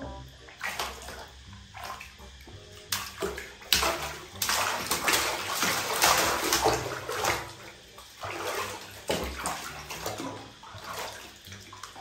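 Water splashing and sloshing in a shallow plastic tub as a baby monkey thrashes and paddles in it, loudest and busiest in the middle few seconds, then settling to smaller splashes near the end.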